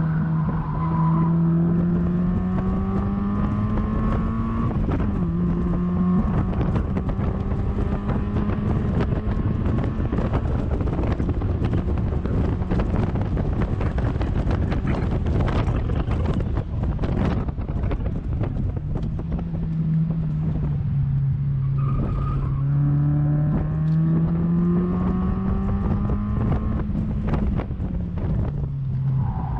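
Mazda MX-5 NB 1.8 four-cylinder engine heard from inside the open cockpit under hard acceleration, revs climbing and dropping at an upshift about five seconds in. Through the middle, at top speed, loud wind and road rush almost covers the engine. Later the revs fall under braking, with a quick rev jump on the downshift, then climb again with another gear change near the end.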